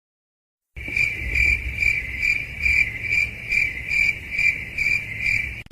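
Cricket chirping sound effect, the stock 'crickets' comedy gag for an awkward silence: an even, high chirp about two and a half times a second over a low rumble. It starts about a second in and cuts off suddenly near the end.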